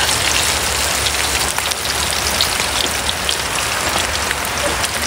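Fish deep-frying in hot oil in a wok: a steady sizzle with many small crackling pops.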